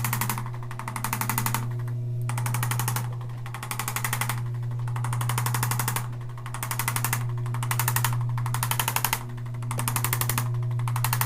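Motorized chiropractic table cycling as it stretches the lower back: a steady motor hum with a rasping mechanical pulse repeating a little more than once a second.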